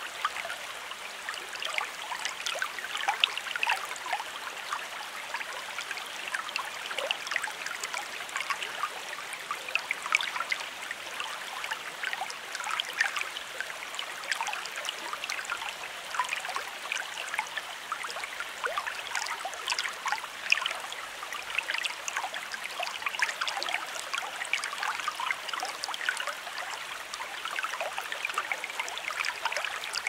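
Shallow creek running over stones: a steady babble of flowing water with many small splashes and trickles.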